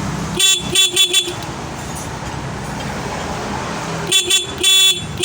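Yamaha Mio Sporty scooter's stock single electric horn sounding in short beeps: a quick run of about four beeps half a second in, then two more near the end, the last one longer.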